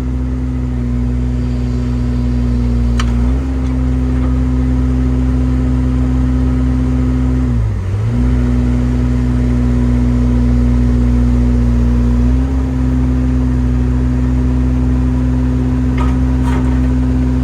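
Excavator diesel engine running steadily while the hydraulics work the bucket through dirt; the engine note dips briefly and recovers about eight seconds in, with a couple of faint clicks.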